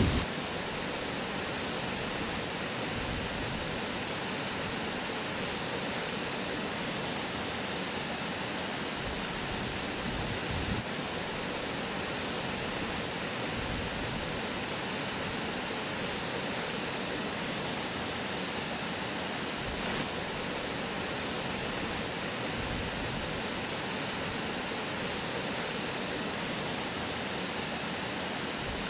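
Steady rushing of a mountain stream, an even hiss of running water with no other sound standing out.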